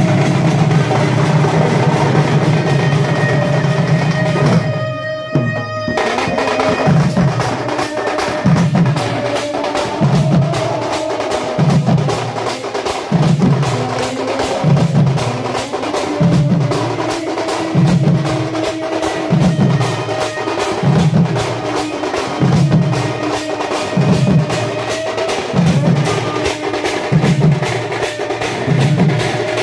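Procession drum band: a troupe of waist-slung barrel drums (dhol) beaten with sticks in a fast rhythm, with a held melody note above and a deep falling beat repeating about every second and a half. The sound briefly thins out about five seconds in.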